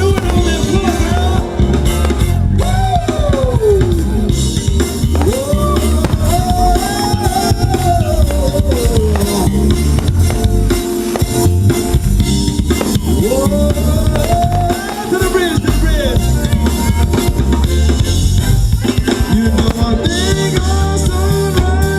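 A live band playing: a drum kit keeps a steady beat with bass drum and snare under a lead melody that slides up and down in pitch.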